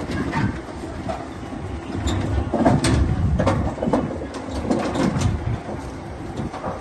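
Steel roll-down security gate being raised, its metal slats clattering and rattling continuously as they roll up, with scattered clanks.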